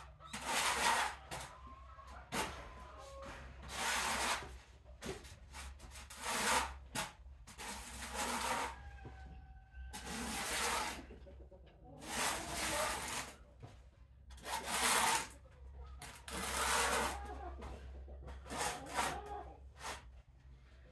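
Kittens shuffling and crawling in their bedding: irregular bursts of rustling and scuffing every second or two, with a few faint, short, high calls.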